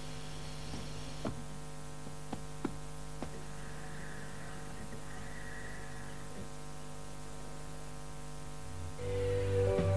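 Steady machine hum with a few faint clicks in the first few seconds. Music starts near the end.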